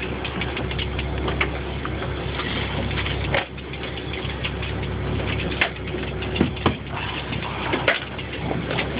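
Boat engine idling steadily, with scattered sharp clicks and knocks from tackle being handled.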